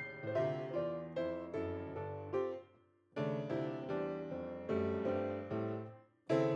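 Background music: a keyboard playing a gentle run of notes, breaking off briefly twice, once about halfway through and once near the end.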